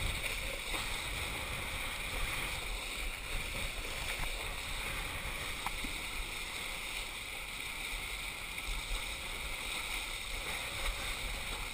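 Steady rush of water and spray under a kiteboard planing fast across the sea, with a low wind rumble on the microphone.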